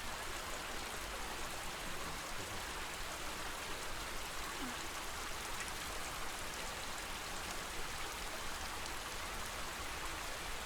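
Steady lake water ambience: an even wash of water noise with faint scattered drips and small splashes.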